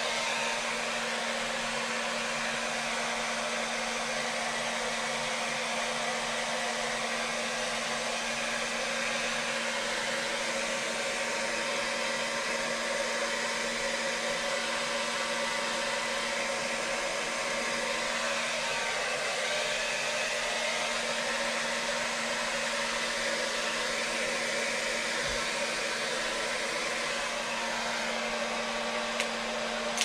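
Hand-held hair dryer running steadily: a blowing rush with a steady low hum, drying a dog's wet coat. It cuts off at the very end.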